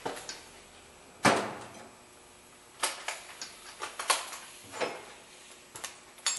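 Scattered metallic clinks and knocks of mechanic's tools being handled, the loudest a sharp knock about a second in, followed by a run of lighter clicks.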